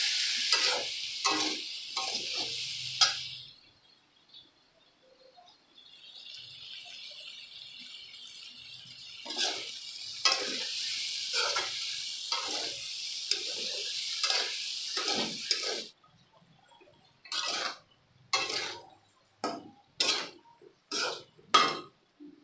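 Cauliflower pieces sizzling in a kadai while a metal spatula stirs and scrapes them against the pan. The sizzle drops away for about two seconds near the start, returns, then stops about two-thirds of the way in, leaving separate scrapes and knocks of the spatula about once a second.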